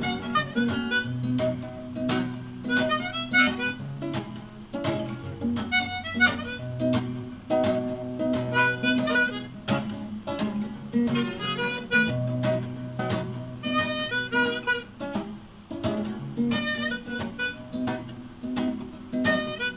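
Harmonica solo in short melodic phrases over steadily strummed acoustic guitar: an instrumental break between sung verses.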